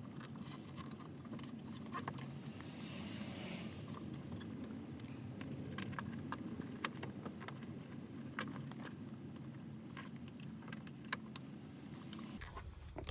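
Scattered light metallic clicks and clinks of hands and small hardware being worked at a car's fuel pump access plate, over a steady low hum that drops away near the end.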